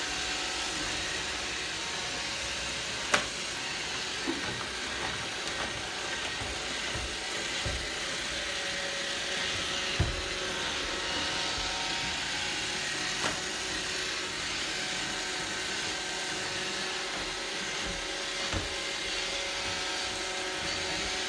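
Roomba robot vacuum running with a steady whirring hum, broken by a few sharp knocks.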